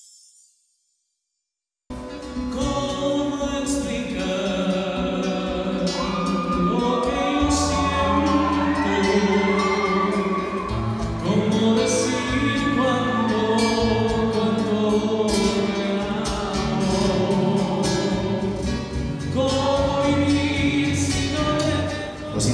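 Andean folk song: a man sings into a microphone over acoustic guitar. It starts suddenly about two seconds in, after a brief silence.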